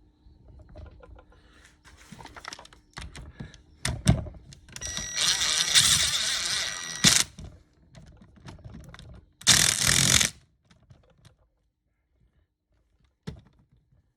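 Workshop handling noise of metal hand tools: scattered clinks and knocks, then a loud rushing scrape lasting about two seconds and a shorter one about nine seconds in, with one more knock near the end.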